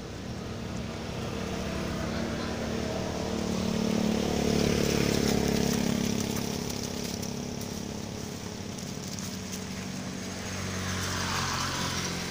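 A motor vehicle engine running, growing louder to a peak about five seconds in and then fading, with a second swell near the end.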